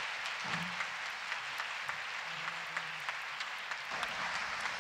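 Audience applauding: a steady patter of many hands clapping, with faint voices under it.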